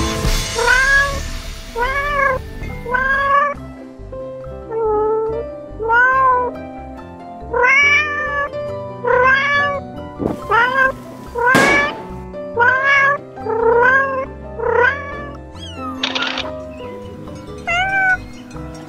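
Domestic cat meowing over and over, a long series of short calls that rise and fall in pitch, over background music. Two sharp clicks stand out a little past the middle.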